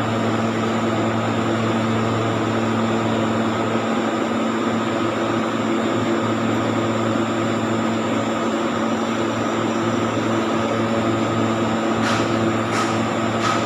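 Large three-phase online UPS running under load: a steady rush of its cooling fans over a low, even mains hum. There are a few faint clicks near the end.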